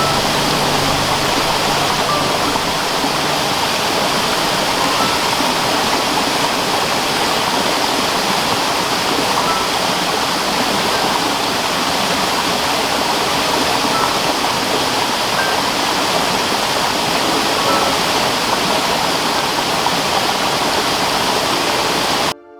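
Steady rushing water, like a waterfall or fast stream, that cuts off abruptly near the end. Faint music tones fade out in the first few seconds.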